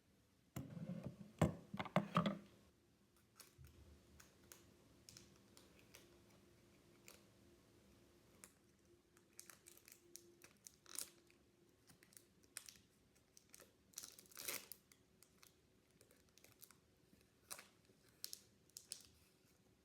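Trading cards and their packaging being handled. A cluster of rustles and sharp clicks comes about a second in, then scattered light clicks and crinkles, with a louder rustle past the middle.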